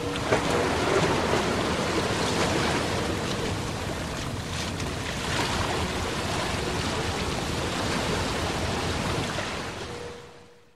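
Ambience aboard a boat: a steady rush of water and wind with a faint hum coming and going, fading out in the last second.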